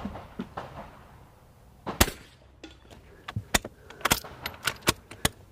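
A single .22 LR bolt-action rifle shot cracks about two seconds in. A quick run of sharp metallic clicks follows, as the bolt is worked to chamber the next round.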